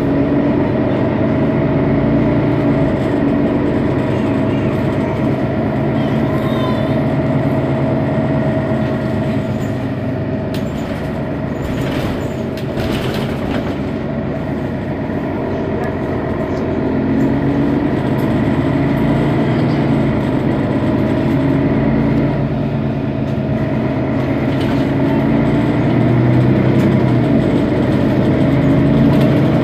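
Mercedes-Benz Citaro city bus engine idling at a stop, its pitch wavering a few times and growing louder near the end. There is a short hiss near the middle.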